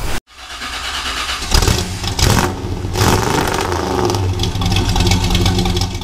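A 2013 Jeep Wrangler Unlimited's engine starting and running with a loud, harsh grinding, which turned out to come from a failing starter.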